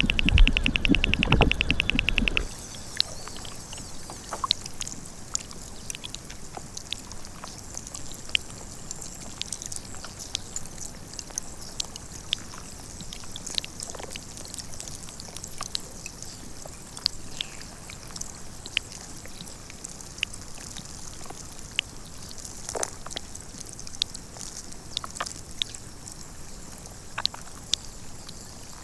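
Glacier meltwater and ice heard through microphones dropped into the water or pressed against the ice. At first a deep drone with fast, rhythmic clicking, typical of an air bubble escaping from the melting ice. About two and a half seconds in, the sound changes to scattered sharp clicks and crackles over a steady high hiss.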